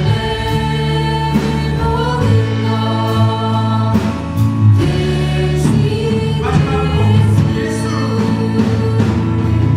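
A church praise band and its singers performing a worship song, with voices holding long sung notes over a steady bass.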